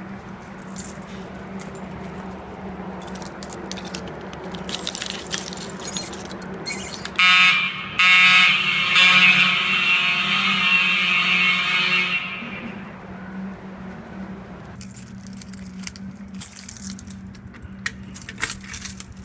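Explosion-proof fire alarm horn sounding a loud tone with a rich stack of overtones: one short blast about seven seconds in, then a longer sounding of about four seconds that fades out. Under it are a steady low hum and scattered clicks and rattles.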